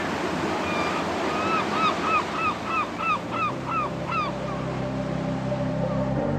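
Sea surf with a gull giving a series of about ten short, hoarse calls, roughly three a second, that stop about two-thirds of the way through. A low steady music drone fades in about halfway through.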